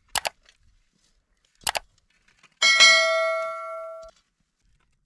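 Two quick double clicks, then a metal object struck once, ringing with a bell-like tone that fades for about a second and a half before stopping abruptly.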